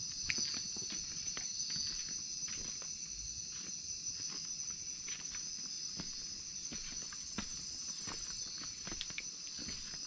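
A steady, high chorus of night insects, with scattered light knocks and taps of footsteps crossing a wooden pole footbridge.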